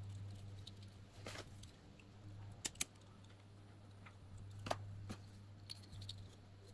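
Faint handling of electrical wires, with a few sharp clicks, the loudest a quick pair in the middle, as a lighter is flicked to heat a wire splice; a steady low hum runs underneath.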